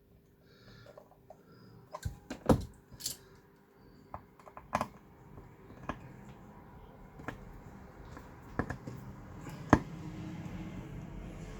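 Irregular small clicks and knocks of a plastic reversing-camera housing being worked apart by hand, with two sharper clacks, one a couple of seconds in and one near the end. A low scraping, rustling noise builds through the second half as the casing is handled and pried.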